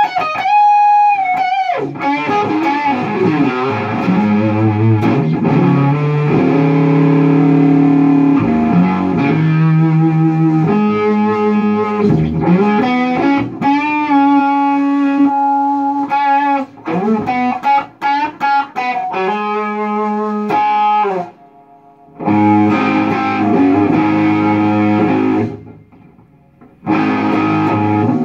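Electric guitar played through a Lone Wolf Audio Left Hand Wrath distortion pedal set for a mid-gain, plexi-style Marshall tone: a rock riff of held chords and single-note licks, breaking off briefly twice.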